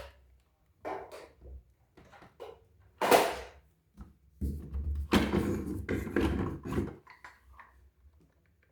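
Handling noise: a series of short knocks and thunks, one loud sharp burst about three seconds in, then a longer stretch of scraping and rustling.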